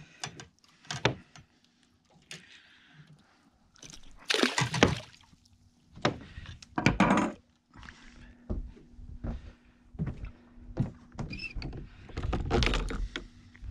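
Knocks and thuds of fishing gear and hands against a fibreglass boat, with bursts of water splashing as a dogfish is unhooked and dropped back into the sea. A faint steady hum comes in about halfway through.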